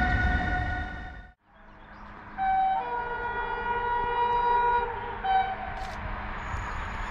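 Train horn: a held blast that cuts off abruptly about a second in, then a two-tone horn sounding high, low, high over the rumble of a train on the track.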